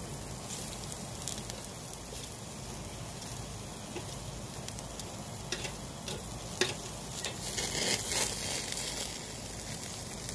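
Zucchini, eggplant and green peppers sizzling steadily on the grate of a charcoal grill. A few sharp clicks in the second half, from metal tongs knocking the grate as the vegetables are turned.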